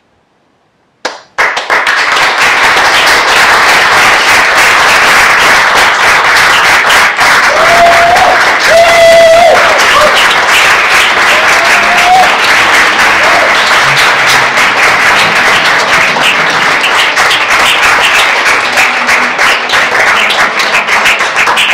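Theatre audience applauding loudly, breaking out suddenly about a second in and going on steadily, with a few brief cheers or whoops in the middle.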